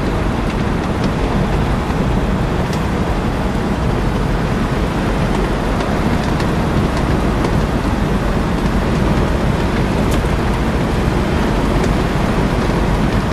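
1956 Mercury Montclair convertible cruising steadily on a country road, heard from inside the cabin: an even rush of wind and tyre noise with the engine low underneath.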